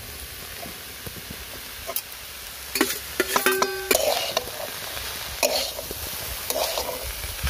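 A flat metal spatula scraping and stirring chopped figs and dried shrimp frying in a metal wok, over a low frying hiss. The strokes start about two seconds in and repeat, the loudest a little past the middle, with a brief metallic squeak among them.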